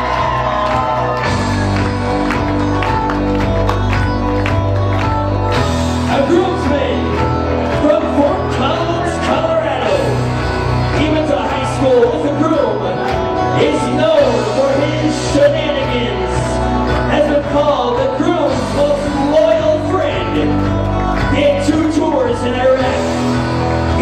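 Loud pop music with a singer over a steady bass beat, played over a DJ's sound system.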